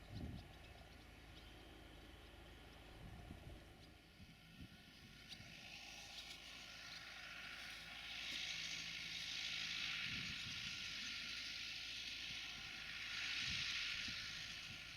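Tractor working the field at a distance: a steady low engine hum with a hissing rush that swells from about six seconds in and peaks twice, and wind buffeting the microphone now and then.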